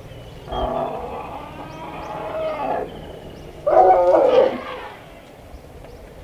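Young African elephant calling twice while sparring: a long call of about two seconds, then a shorter, louder one a moment later.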